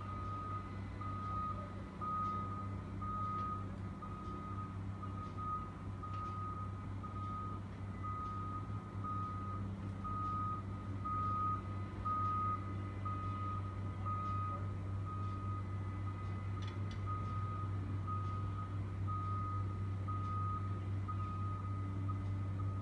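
A backup alarm beeps on one tone, evenly and without pause, over the steady low drone of a Caterpillar excavator's diesel engine running as it handles a steel gas pipe.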